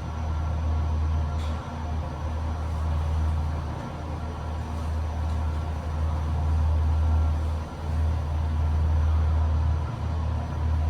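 KONE scenic elevator car travelling down its shaft: a steady low hum and rumble.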